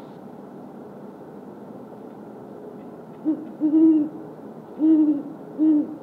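Great horned owl giving its territorial hoot: four deep hoots starting about three seconds in, a short one, then a drawn-out one, then two more.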